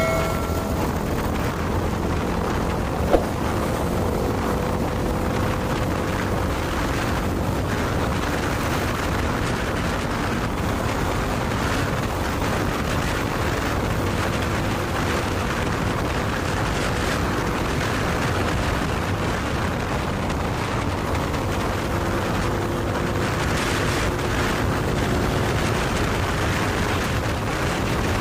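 Steady rush of wind on the microphone and road noise from a motorcycle riding in traffic, with a faint engine tone underneath. A vehicle horn fades out at the very start, and there is a single sharp click about three seconds in.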